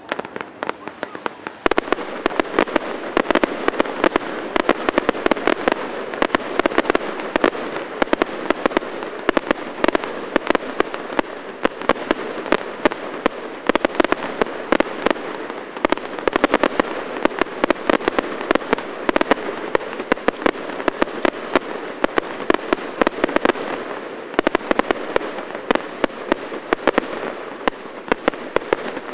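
Fireworks display: a dense, rapid crackle of sharp bangs and pops, many per second, growing thicker about a second and a half in and keeping on.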